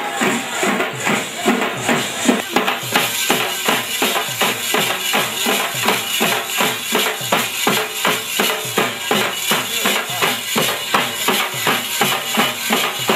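Folk drum troupe playing a fast, steady rhythm on stick-beaten drums, with metal hand percussion jingling on top; the beat settles into about four strokes a second a couple of seconds in.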